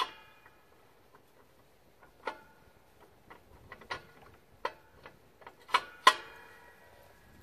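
Steel three-point hitch parts clinking and clanking as they are handled: about a dozen irregular metal strikes, each ringing briefly. The loudest clank comes about six seconds in.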